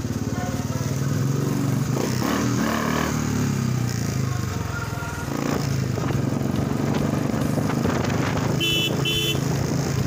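Motorcycle engine running steadily while riding, with two short horn beeps in quick succession near the end.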